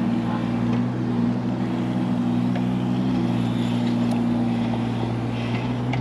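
Mini excavator's engine running steadily at a constant speed, a low even drone, with a few faint ticks over it.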